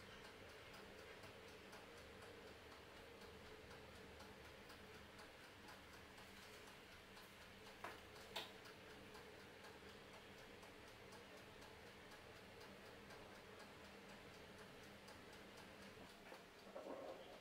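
Near silence: quiet room tone with faint regular ticking and two soft clicks about eight seconds in, as glass bottles holding plant cuttings are handled.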